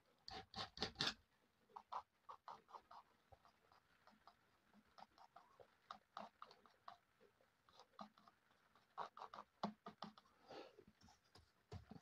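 Faint, scattered taps and scrapes of a steel palette knife, picking up oil paint from the palette and dabbing and flicking it onto a canvas. They come in small clusters, the clearest in the first second.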